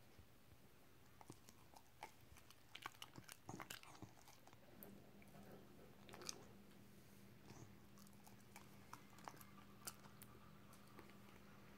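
Dog chewing banana: faint, soft wet clicks and smacks of its mouth, coming thickest in the first few seconds and then scattered.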